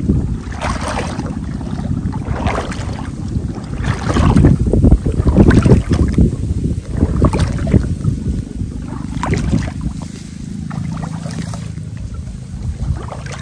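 Water sloshing and splashing in irregular bursts, under a steady low rumble of wind on the microphone.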